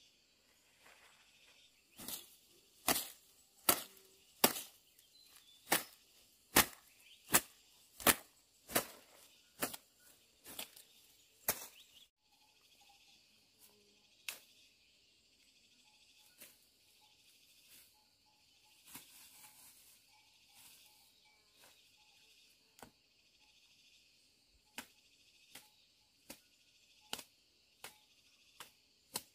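Machete chopping through brush and branches: a steady run of sharp strikes, about one and a half a second, for some ten seconds, then single strikes now and then. A steady high insect drone runs underneath.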